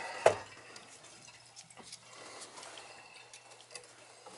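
A single sharp knock about a quarter second in, then a few faint scattered ticks, from gloved hands handling a Taco zone valve on copper heating pipe.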